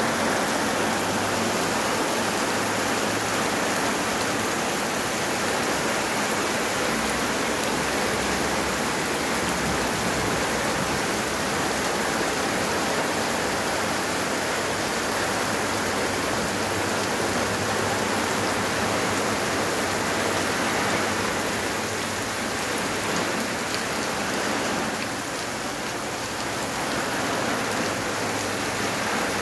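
Steady heavy rain falling, a dense even hiss of water on the ground and foliage.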